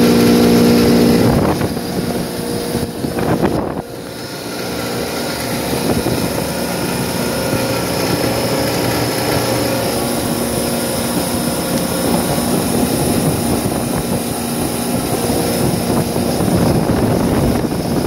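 Walk-in freezer condensing unit running steadily, its compressor and condenser fan making a loud mechanical hum, while the compressor is being topped up with oil after an oil-pressure failure caused by low oil.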